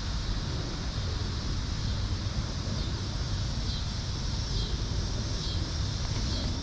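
Outdoor ambience: a steady low rumble of wind on the microphone over a constant high hiss, with a few faint chirps in the second half.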